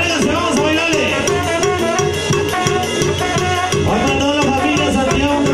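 Live Mexican brass banda playing: clarinets, trumpets, trombones and sousaphone carrying the melody and held chords over a steady beat from a bass drum, snare drums and cymbal.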